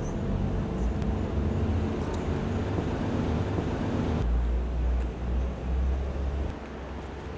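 Outdoor street background with a low rumble of traffic. About four seconds in, the sound changes abruptly to a heavier, deeper rumble.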